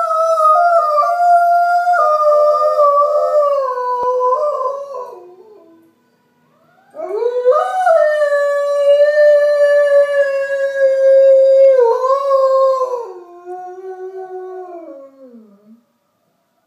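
Alaskan Malamute howling, set off by an ambulance siren. There are two long howls: the first slides downward and fades out about six seconds in, and the second rises in a second later, holds steady, then slides down and trails off near the end.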